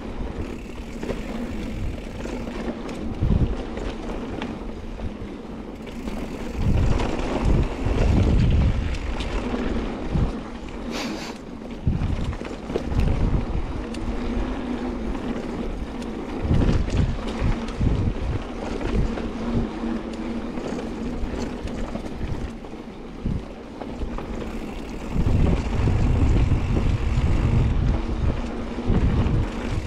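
Wind buffeting the microphone of a mountain bike rider on a dirt trail, with the hiss of the bike's tyres rolling underneath. The low rumbling gusts come and go, heaviest a few seconds in and again near the end.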